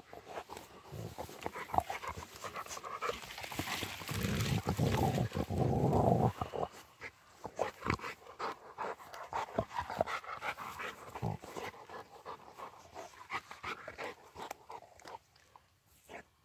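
Two Rottweilers panting and sniffing as they nose through long grass around a dead branch, with rustling and many small clicks and cracks. It grows louder and rougher for a couple of seconds about four seconds in, then quietens toward the end.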